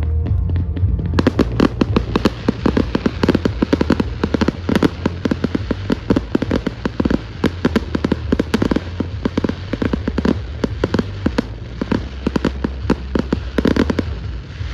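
Fireworks display: a dense barrage of firework bursts and crackling reports, many a second, starting about a second in.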